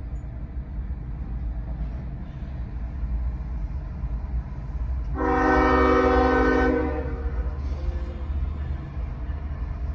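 Norfolk Southern GE freight locomotive's air horn sounding one blast of about a second and a half, about five seconds in. It plays over a steady low rumble.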